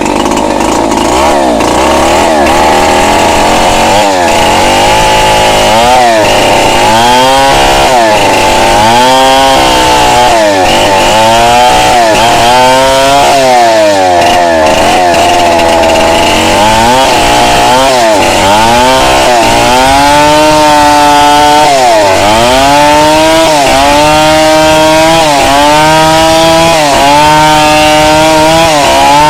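Petrol chainsaw running at full throttle while ripping lengthwise through a log. Its engine pitch dips and rises over and over, about once a second, as the chain loads up in the wood and frees again.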